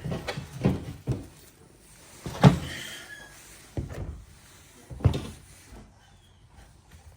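A series of knocks and thumps from a motorcycle seat being handled and worked on, about six of them, the loudest about two and a half seconds in.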